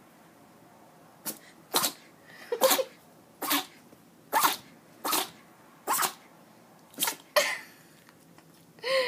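A young puppy sneezing over and over in a sneezing fit: about nine short, sharp sneezes, roughly one a second.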